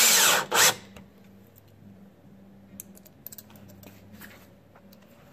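A power drill runs briefly to drive a screw, its motor pitch changing, then gives one more short burst about half a second in. After that come only light clicks and taps of parts being handled.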